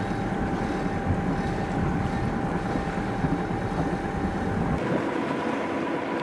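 Wind buffeting the microphone aboard a sailboat moving through an anchorage, with a faint steady whine over it. The low rumble drops away about five seconds in.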